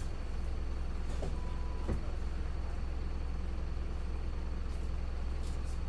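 Bus engine running with a steady low rumble, and two light knocks about a second in and just before two seconds.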